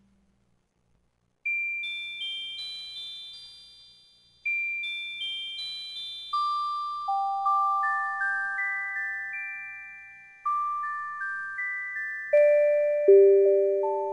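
Background music of music-box-style bell notes: single high chimes struck one after another, each ringing and fading. They begin after about a second and a half of silence and move down into a lower, fuller passage of overlapping notes near the end.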